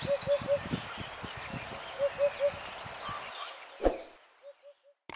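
Evening bush ambience with scattered high bird chirps over a steady hiss, and a bird repeating a short, low three-note call about every two seconds. A single thump comes near the end, then the ambience fades out.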